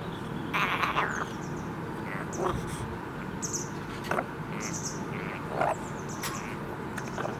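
Rook calling: a longer, rough call about a second in, then a string of short, separate calls spaced a second or so apart.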